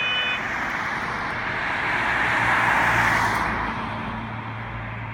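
A car passing close by: its tyre and engine noise swells to a peak about halfway through and then fades away, leaving a steady low engine hum.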